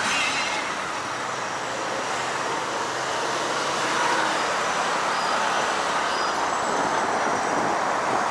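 Steady rushing road and wind noise of a vehicle on the move, with no distinct engine note.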